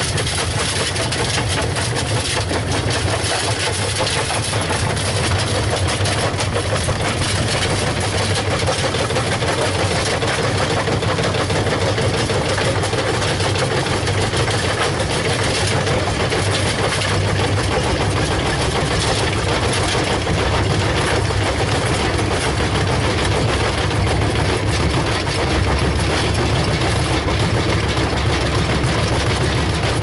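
LG front-loading washing machine on a high-speed spin, the drum running with a loud, steady rumble and knocking while the cabinet rocks and shifts on the ground under an unbalanced load.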